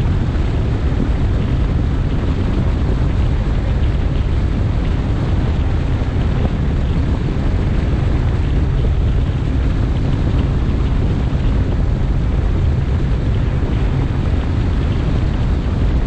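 Bass boat running at speed: a steady, loud rush of wind buffeting the microphone over the boat's outboard motor and water noise.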